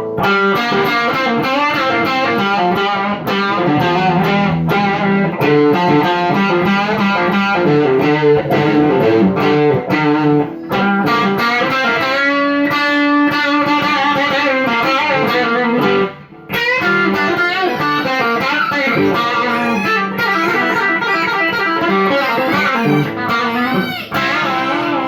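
Electric guitar played through a distortion effect set to 7, a run of quick notes and riffs with a held, bending note about halfway through and a brief break about 16 seconds in.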